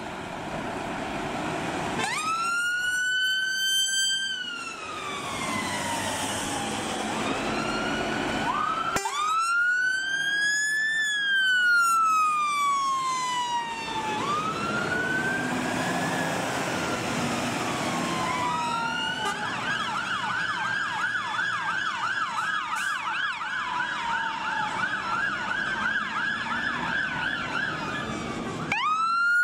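Sirens of UK fire engines and an ambulance on a blue-light turnout: slow wail sweeps that rise and fall over several seconds, starting about two seconds in, then switching to a fast yelp of about two cycles a second, with vehicle engine noise underneath. Near the end a louder siren starts up.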